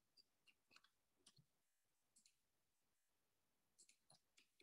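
Faint computer mouse clicks, about a dozen at irregular spacing and bunched in little runs, over near silence.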